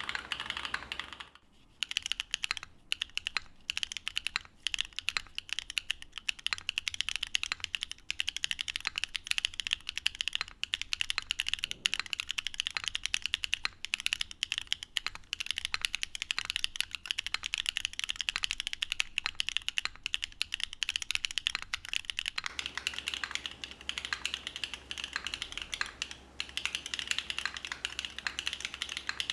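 Continuous fast typing on a Qwertykeys NEO70 custom mechanical keyboard with FOD Lucky linear switches (polycarbonate housings), carbon-fibre plate and gasket mount, fitted with case foam only, keys bottoming out with a clacky sound. A short pause about a second and a half in, and the sound turns more distant and roomy near the end as the recording switches to the camera microphone.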